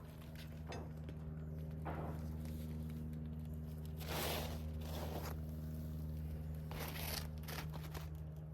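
Asphalt roof shingles being pried loose, in several short scraping, tearing bursts as the sealant strips pull apart, over a steady low hum.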